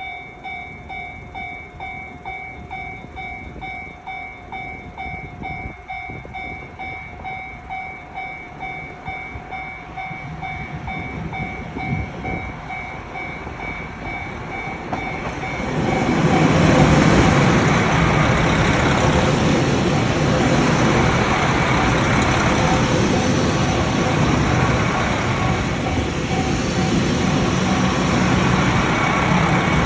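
Level-crossing warning bell ringing in a steady repeating two-tone pattern. About halfway through, a JR Hokkaido KiHa 261 series diesel railcar arrives and passes, its engine and wheel noise rising to drown out the bell.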